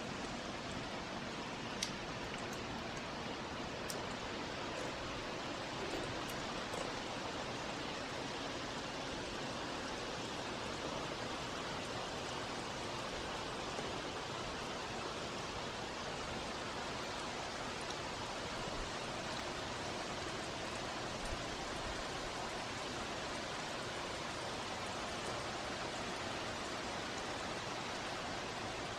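Heavy rain pouring down steadily, an even hiss, with a few sharp drip ticks in the first few seconds.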